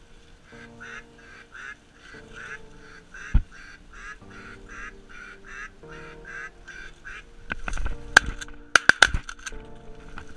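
A duck quacking over and over, about two or three short quacks a second. About eight seconds in, a cluster of sharp knocks, the loudest sounds here.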